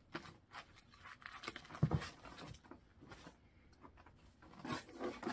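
Plastic-sleeved paper pattern packets being leafed through and pulled from a cardboard box: irregular rustling and crinkling, with a dull thump about two seconds in.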